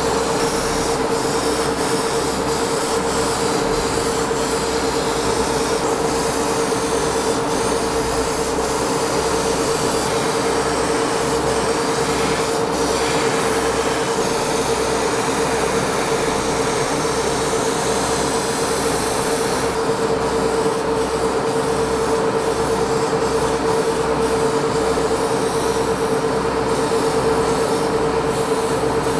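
Airbrush spraying model paint inside a hobby spray booth: a steady machine hum, with a regular low pulsing, under the hiss of air and paint from the airbrush.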